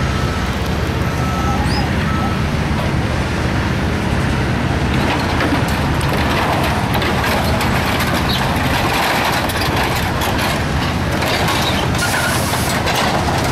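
Heavy diesel engines running steadily under highway traffic noise. From about five seconds in, louder hiss and scattered knocks join.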